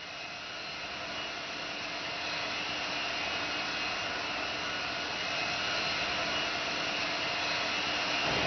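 Jet aircraft engine running with a steady whine over its rushing noise, growing gradually louder over several seconds.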